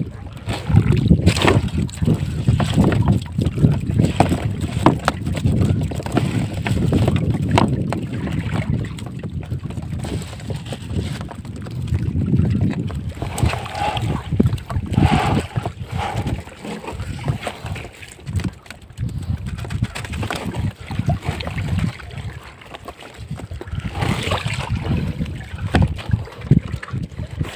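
Wind buffeting the microphone over water splashing, with scattered knocks and rustles as a togok bag net and a mesh basket of freshly caught shrimp and small fish are handled.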